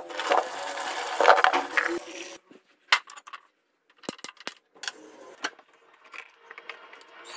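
Water running onto small potatoes in a stainless steel sink for about two seconds, then a string of sharp clicks as a gas stove burner is lit.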